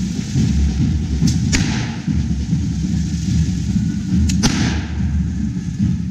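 Handheld correfoc fireworks on poles hissing as they spray sparks, over a steady low rumble, with a pair of sharp cracks about a second and a half in and another pair past four seconds.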